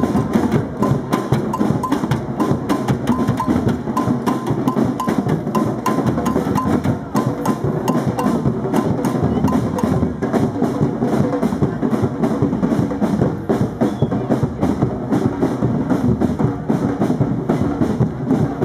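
Street drum band of snare drums, bass drums and other marching drums played with sticks, beating out a fast, dense groove together. A repeated higher-pitched beat rides on top for roughly the first ten seconds.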